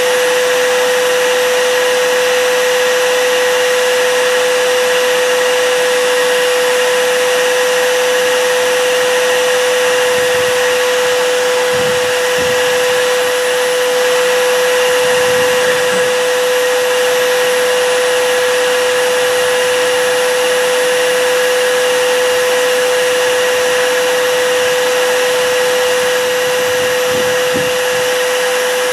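A vacuum runs steadily with one strong, even hum. Its suction is drawn through a sealed container to pull automatic transmission fluid slowly up nylon tubing from the transmission pan through the dipstick tube.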